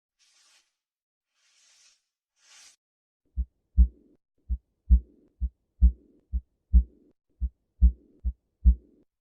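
Heart sounds from a stethoscope-style recording: a steady lub-dub heartbeat of about 65 beats a minute starts about three seconds in, the second sound of each pair the louder. A soft murmur trails each louder sound.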